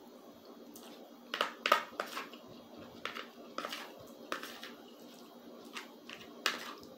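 Eating sounds: a metal spoon scraping and clicking on a plastic plate, with chewing between. They come as a string of short, sharp bursts, the loudest cluster about one and a half to two seconds in.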